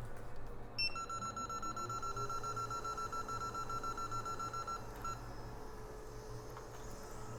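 Soldering equipment switched on: a click, then a high electronic beep repeating rapidly, about seven a second, for about four seconds, with a short second burst. Under it, a tone rises and then holds steady, like a hot air rework station's fan spinning up.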